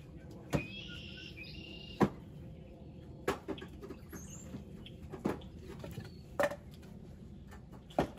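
Split firewood pieces knocking against each other as they are stacked into a wire-cage tote, six sharp knocks spaced a second or so apart. A bird chirps briefly about a second in.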